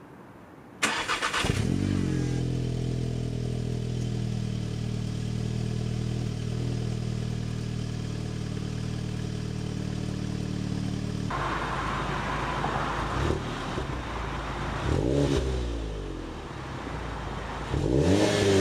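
Stock Volkswagen Golf 7 GTI's turbocharged 2.0-litre four-cylinder engine being cranked by the starter and catching, then idling steadily. About eleven seconds in the sound changes abruptly, and the engine is revved three times, each blip rising and falling, the last the loudest.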